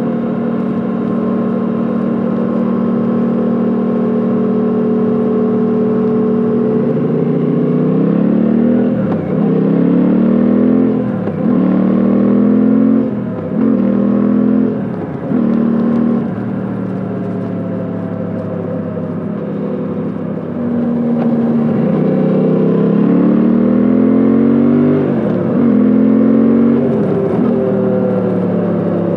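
Suzuki V-Strom 800DE's parallel-twin engine and exhaust, heard from the rider's seat. It holds a steady note for several seconds. It then accelerates through several gear changes, the revs climbing and dropping sharply with a brief dip in loudness at each shift, settles for a few seconds, and accelerates through more shifts near the end.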